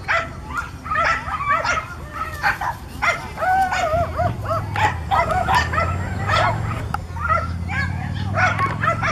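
Dogs barking and yipping in quick, high-pitched calls, several a second, during lure coursing. A steady low hum comes in about four seconds in.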